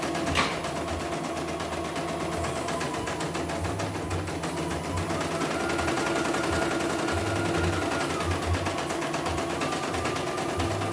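CNY E900 portable computerized embroidery machine stitching a design, with a rapid, steady run of needle strokes. Over it runs a whine that steps up in pitch about five seconds in and drops back down about three seconds later, with one sharp click just after the start.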